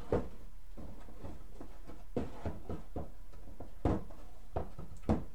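Irregular knocks and clatter of objects being handled and moved about, about seven in all, the loudest about four seconds in and just before the end.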